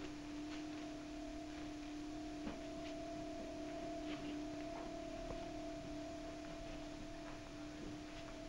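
A steady two-tone hum: a low tone and one about an octave above it, held evenly, with faint scattered clicks.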